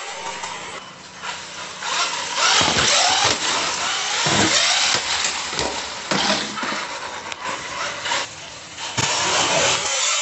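UDIRC 1202 1:12-scale electric RC truggy driven in surges across a hard tiled floor: motor and drivetrain whining under throttle, tyres hissing on the floor, with falling whines as it backs off between bursts.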